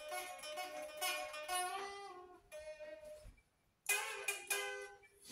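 Electric guitar being played: a run of single picked notes, a short pause about three seconds in, then two struck chords.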